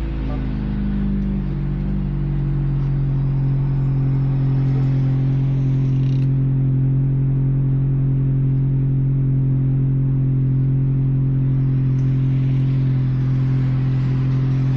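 Subaru Impreza's 2.0-litre flat-four with a full muffler delete, idling high just after a cold start, heard from inside the cabin with the front windows open. The engine note settles over the first couple of seconds, then holds steady.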